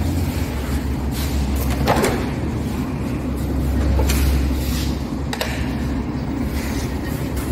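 A steady low rumble of workshop background with a few sharp knocks and clicks from parts being handled, one about two seconds in and two more in the second half.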